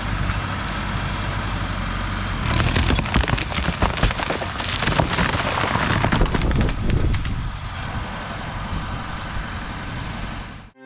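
T74 crawler tractor's engine running steadily as the rotten chestnut tree it is pulling gives way. About two and a half seconds in, a long run of cracking and crashing breaks out as the trunk splits and the tree comes down. It dies away about seven seconds in, leaving the engine running.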